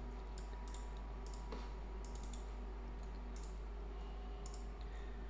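Faint, scattered clicks of a computer mouse and keyboard, several irregularly spaced, over a steady low hum.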